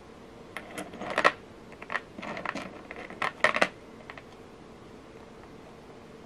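Metal and lava-stone beads clicking against each other on a beading thread as a bead is slid on and the strand is set down on the work surface: a run of small sharp clicks lasting about three seconds.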